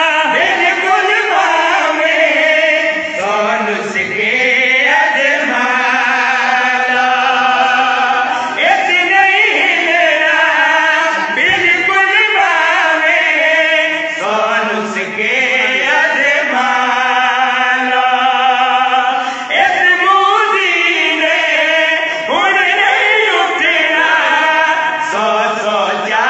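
Male voices chanting a devotional Punjabi verse in a melodic style, in long held, wavering notes broken into phrases every few seconds, amplified through a microphone and loudspeakers.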